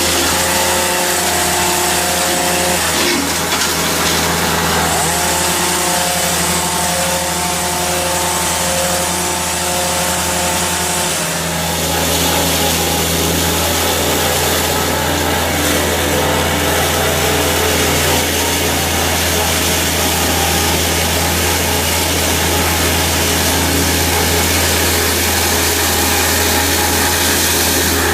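Tree-cutting machinery running steadily under load: a heavy engine with sawing noise over it.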